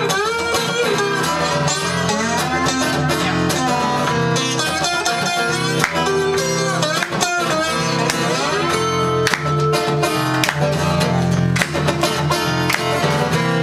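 Two acoustic guitars strummed together, with a man singing over them.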